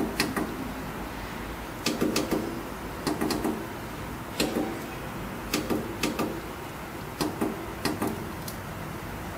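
Push-buttons on a traffic signal controller's front panel clicking as they are pressed one after another, about ten irregularly spaced clicks, some in quick pairs, over a steady low hum.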